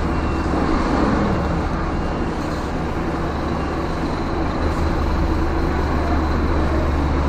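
Scania truck's diesel engine running at low revs, a steady deep drone, while the truck and trailer maneuver slowly.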